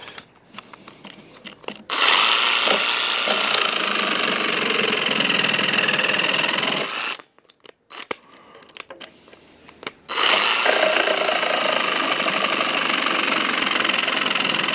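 Parkside 20 V cordless jigsaw/sabre saw, folded into sabre mode with a wood-cutting blade and the pendulum action off, sawing through soft wood. It runs in two stretches of about five seconds each, stopping for a few seconds between them.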